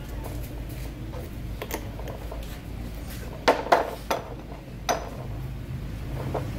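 A few sharp metallic clinks and knocks of hand tools and parts handled during the strip-down of a Honda power steering pump, with a quick cluster of them past the midpoint, over a steady low hum.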